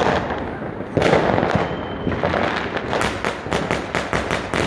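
Fireworks going off: a sudden burst about a second in, then a rapid string of sharp cracks and bangs from about three seconds in.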